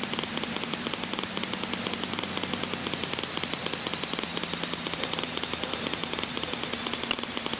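Aerobatic plane's piston engine idling, heard inside the cockpit as a steady drone with a fast, even pulse and a hiss.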